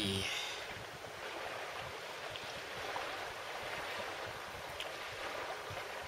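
Strong wind rushing steadily around a fishing bivvy, with a few faint clicks and ticks from hands working at a bait.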